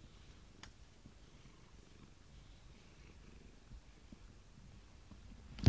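Domestic tabby cat purring softly, a low steady rumble. A sudden knock right at the end.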